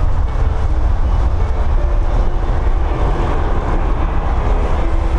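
Strong wind buffeting the microphone: a loud, steady, flickering low rumble with a hiss above it.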